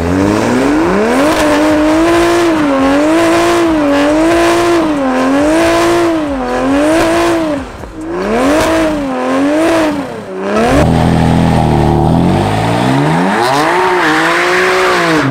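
Car engine held high in the revs during a burnout, its pitch swinging up and down about once a second over a hiss of spinning tyres. About eleven seconds in the revs drop to a lower, steadier note, then the engine is revved up once more and falls away near the end.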